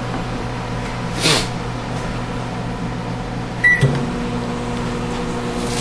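Microwave oven humming steadily, with a brief swish about a second in and a short keypad beep with clicks about two-thirds through, after which the hum grows fuller as the oven starts running.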